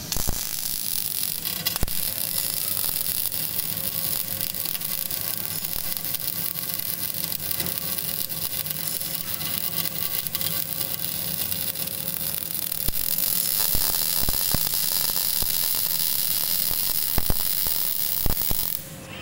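Panasonic robotic arc welder at work: a steady hiss of the welding arc with scattered crackles, over a constant machine hum. It grows louder about two-thirds of the way in and stops abruptly near the end.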